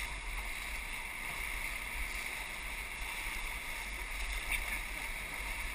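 Steady rush of whitewater river rapids, heard from a raft in the middle of them, with a constant low rumble of wind and water on the microphone.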